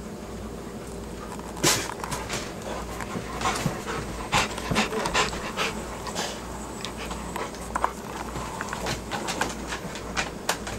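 A dog panting close by, with scattered sharp taps and clicks throughout.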